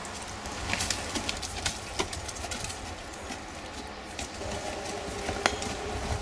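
Horse's hooves striking a sand-and-gravel arena: an uneven series of knocks and clicks, thickest in the first couple of seconds, with one sharp knock near the end. A bird coos faintly in the background toward the end, over a low rumble.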